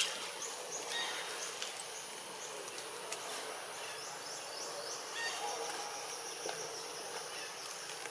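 Forest ambience: a steady, high insect drone with runs of short, high, falling chirps, and a sharp click at the very start.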